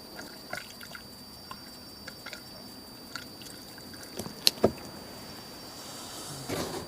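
Gasoline being poured into a rebuilt outboard carburetor for a leak test: scattered small drips and ticks, two sharp clicks about four and a half seconds in, and a short rustle near the end.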